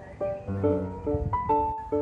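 Background music: a light instrumental of evenly spaced plucked notes, a little over two a second, moving to a new chord about half a second in.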